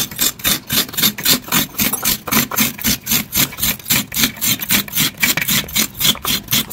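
Fresh coconut half grated by hand against the toothed iron blade of a coconut scraper: quick rasping scrapes, about four strokes a second.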